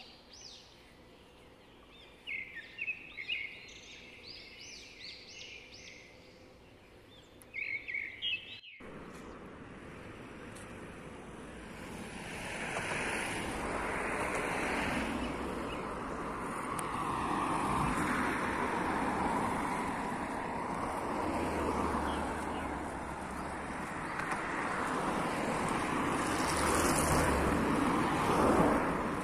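Small birds chirping in short repeated phrases over a quiet background. Then, after a cut about nine seconds in, a steady rushing noise takes over and swells louder.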